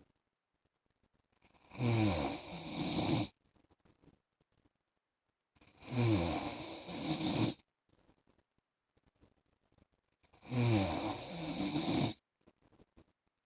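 A man snoring in his sleep: three long snores about four seconds apart, each with a falling pitch.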